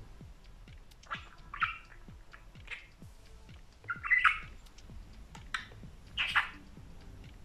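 Budgerigar giving short chirps and squawks, about six in all, the loudest a double call a little past halfway.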